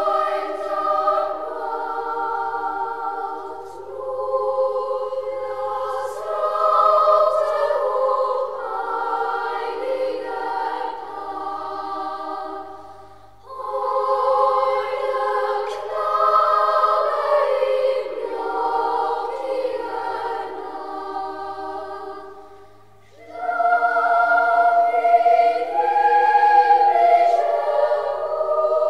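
A choir singing in long phrases, breaking off briefly twice between them.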